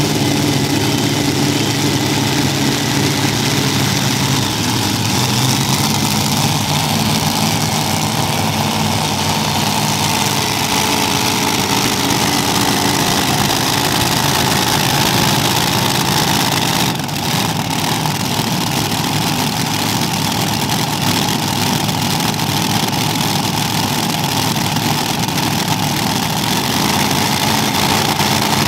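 The Kentuckian multi-engine modified pulling tractor's supercharged engines running at idle, a steady, dense engine sound that barely changes in pitch.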